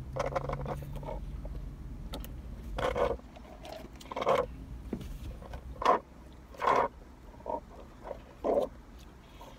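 Slurping through straws from thick, creamy drinks: a string of about eight short, separate slurps, some a second or more apart.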